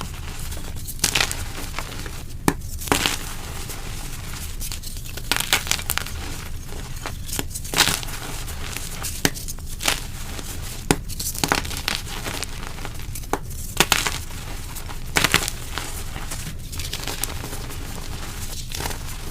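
Dyed gym chalk (magnesium carbonate blocks) being crushed and crumbled, with sharp, crisp crunches at irregular intervals of a second or two.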